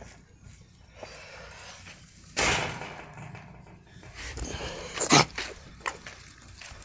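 Rustling and scraping right at the microphone as a miniature poodle's fur brushes against the phone, with a loud burst about two and a half seconds in and a few sharp knocks a little after five seconds as the phone is moved about.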